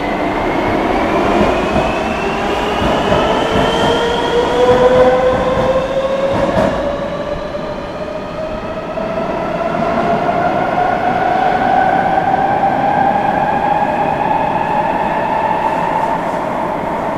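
Madrid Metro Serie 3000 train pulling away and accelerating. Its traction motors whine in several tones that rise slowly in pitch throughout, over a steady rolling noise from the wheels on the rails.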